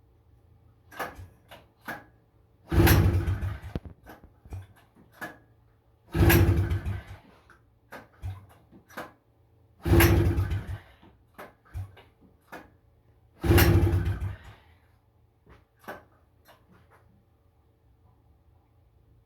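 Recoil pull-starter on a 1977 Honda FL250's two-stroke single-cylinder engine, yanked four times about three and a half seconds apart, each pull a loud whirring turn-over of about a second that does not catch, with small clicks and knocks between pulls. The engine will not start; the owner thinks its rusted carburetor, with broken parts, is cooked.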